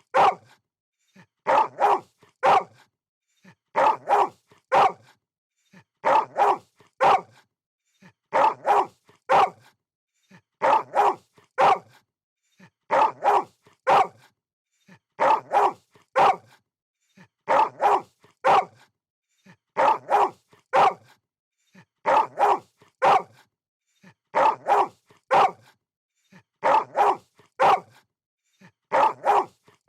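A dog barking in short bursts of two or three barks, the same burst repeating about every two seconds as a looped recording.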